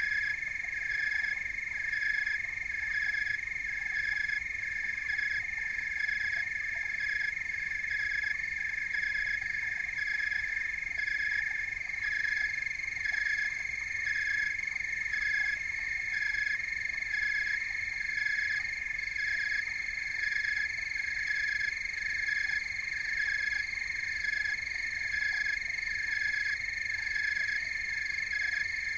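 Steady high-pitched animal chorus: several overlapping shrill tones held without a break, with a chirping pulse repeating about twice a second.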